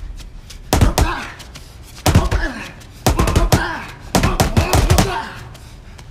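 Fists punching a concrete wall, four heavy blows about a second apart. Each blow comes with a man's strained, drawn-out cry.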